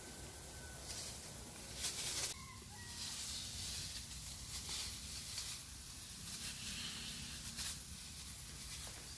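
Faint steady hiss of pesticide mist from a hose spray wand fed by an electric pump, with a few short animal calls. A brief loud burst of noise comes about two seconds in.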